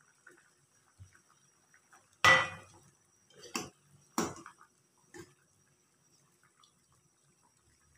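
Steel ladle knocking against a metal saucepan while stirring agar agar in hot water: four clanks with a short ring, the first, about two seconds in, the loudest.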